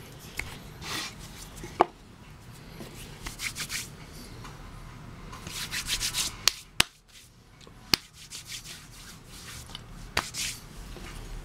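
Hands rubbing and brushing across a wooden board in short scratchy spells. A few sharp wooden clicks and knocks come as the willow hearth board is handled and set down.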